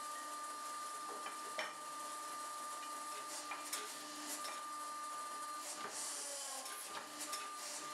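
Hydraulic pump and electric motor of a homemade 40-ton forging press running with a steady whine, dipping slightly in pitch about six seconds in. Scattered sharp clicks of steel tongs and the steel plate knocking against the dies.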